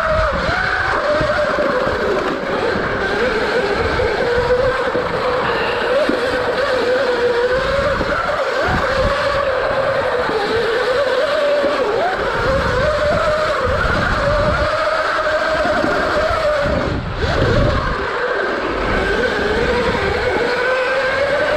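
Electric dirt bike's motor whining, its pitch rising and falling as the rider works the throttle through the turns, over a rumble of wind and knocks from the rough track.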